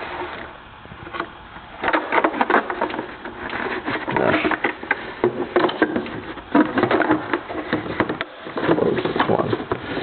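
Tools and testing gear being rummaged through in a toolbox drawer: irregular clicking and rattling of items knocking together as they are picked up and moved, sparse at first and busier from about two seconds in.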